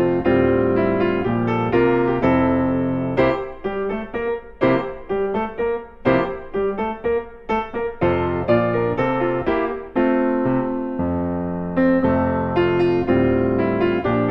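Background piano music: struck notes that ring and fade, with a quicker, choppier passage in the middle.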